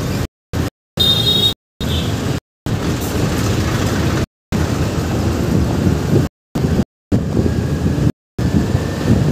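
Busy city road traffic: engines running and a dense low rumble of vehicles, broken by several brief total dropouts in the audio. A short high horn beep sounds about a second in.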